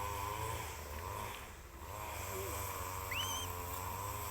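A motor running steadily, its pitch wavering slowly, with a short rising chirp about three seconds in.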